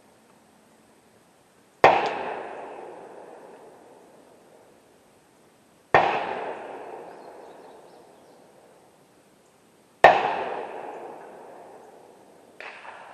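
Three loud rifle shots about four seconds apart, each with a long echoing tail, then a fainter shot near the end.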